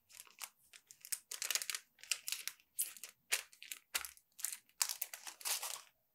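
Clear plastic bag crinkling and rustling in a quick run of short bursts as a damp sheet of paper is slid into it and the bag is pressed flat by hand.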